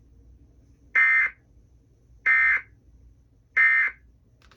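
Emergency Alert System end-of-message data burst sent three times: three short, identical bursts of digital tones about 1.3 seconds apart, signalling the end of the broadcast warning.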